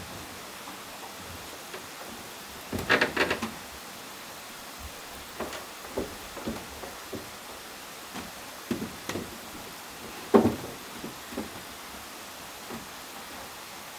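Wooden knocks and clatter as a wooden chair is handled and moved on a wooden plank balcony, with steps on the boards. There is a rattling cluster of knocks about three seconds in, scattered single knocks after it and a sharp knock near ten seconds, over a steady background hiss.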